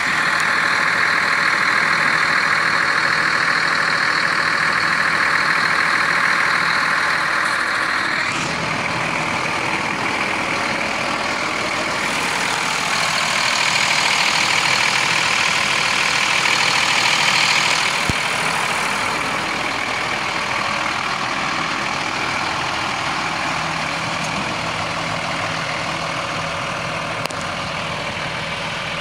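Sterling L7500 truck's diesel engine idling steadily, getting louder for a few seconds about midway.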